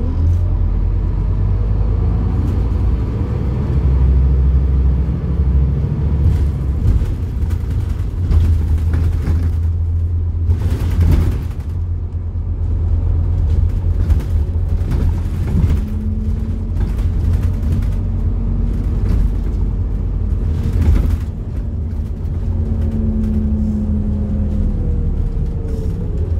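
Scania diesel engine of an Alexander Dennis Enviro400 double-decker bus, heard from inside the moving bus: a steady low rumble with occasional knocks and rattles. A brief steady drone rises out of the rumble twice, once a little past halfway and again near the end.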